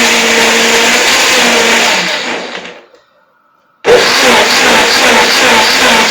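Electric blender running at full speed, blending okra with a little water. It is switched off about two seconds in and winds down to a stop, then starts again just under a second later.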